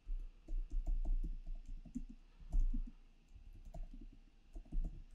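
Typing on a computer keyboard: a run of irregular, fairly quiet key clicks.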